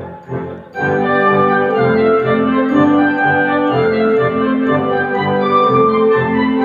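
Electronic keyboard ensemble playing a lively piece with a steady, regular bass rhythm. The full ensemble comes in louder under a second in.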